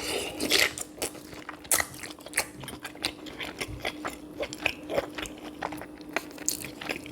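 Close-miked eating sounds from a sweet potato and sausage boil: wet chewing with many quick, irregular smacks and clicks of the mouth, over a faint steady hum.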